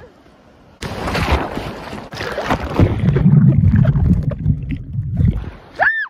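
Loud rushing and rumbling of seawater washing around the phone's microphone, starting suddenly about a second in and dying away near the end. A short high squeal from a girl follows just before the end.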